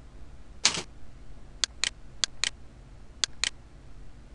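Computer mouse button clicking: three pairs of short, sharp clicks, the two clicks of each pair a fifth of a second apart, after a duller tap near the start.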